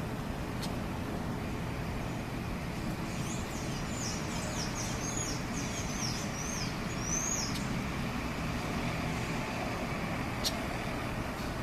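Steady low rumble of traffic, with a small bird giving a run of quick high chirps that glide up and down from about three seconds in until about seven and a half seconds. A few sharp ticks stand out, one near the end.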